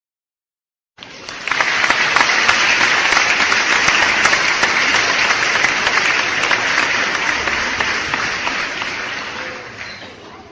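Applause sound effect: a crowd clapping densely. It starts about a second in, holds steady, then fades gradually before cutting off sharply.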